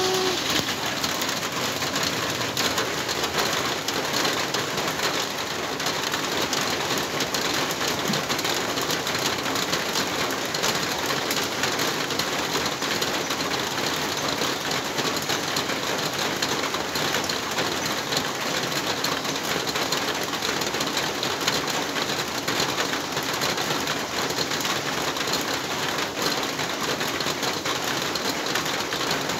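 Heavy rain falling steadily on a large corrugated metal roof, a dense, even patter.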